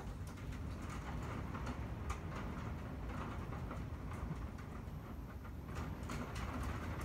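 Heavy rain pelting against windows: many irregular taps over a steady low rumble.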